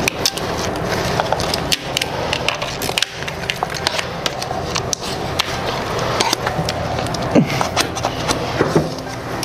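Self-adhesive interior vinyl film being pressed and tucked into a ceiling groove with a scraper: a steady run of small clicks and crackles from the plastic film and blade, with two short squeaks late on.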